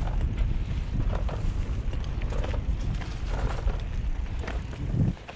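Wind buffeting a moving camera's microphone with a steady low rumble, with scattered light clicks and knocks over it; the rumble drops away sharply near the end.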